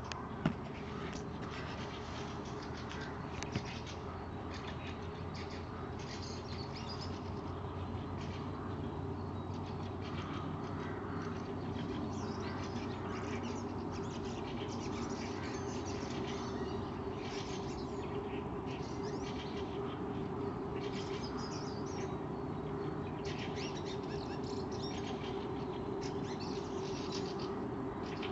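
A dense dawn chorus of many birds twittering and chirping at once, shrill and unbroken, over a low steady hum. There is a single sharp click about half a second in.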